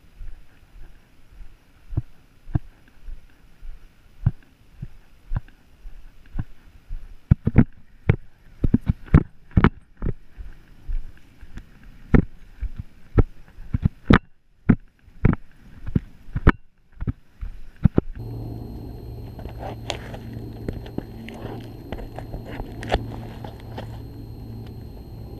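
Footsteps at a steady walking pace, first soft steps on a concrete curb, then sharper, louder clicks of shoes on rocks. About 18 s in, the sound changes to a steady low hum with scattered knocks and scrapes of shoes and hands on the tree being climbed.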